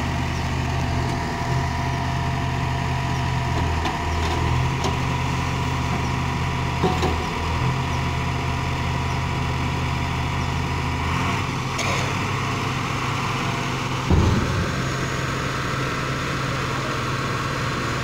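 Diesel engines of a JCB 3DX backhoe loader and a Tata dump truck running steadily, with a few faint clicks and one loud thump about fourteen seconds in.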